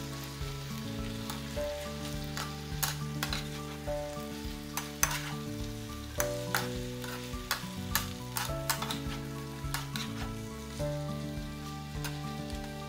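Beef and onion sizzling in a nonstick frying pan as a spatula stirs and tosses them, with irregular sharp clicks and scrapes of the spatula against the pan. A quiet tune of held notes plays underneath.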